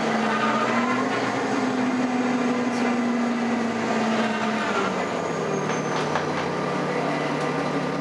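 2011 Nova Bus LFS city bus drivetrain running, heard from on board: a steady droning note that steps down in pitch about five seconds in, as at a gear change, with a faint high whine gliding downward before it.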